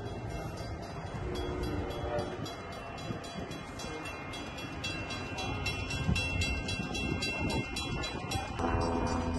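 Train running on the tracks, a steady low rumble, with a train horn sounding briefly about a second in and again, louder and held, near the end.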